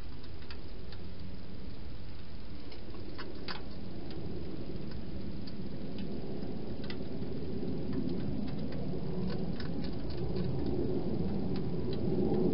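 A hedgehog eating from a bowl inside a plastic feeding box: irregular small clicks and crunches, with a low rustling that grows louder near the end.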